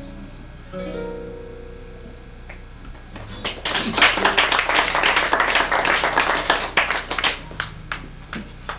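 Classical guitar's closing notes and a final chord ringing out, then applause starting about three seconds in and lasting some five seconds before thinning out.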